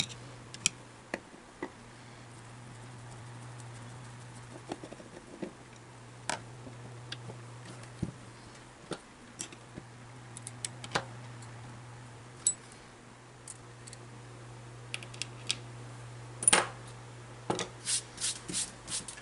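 Scattered small clicks and taps of tools and small metal parts handled on a workbench during motor disassembly, with a quick run of clicks near the end, over a steady low hum.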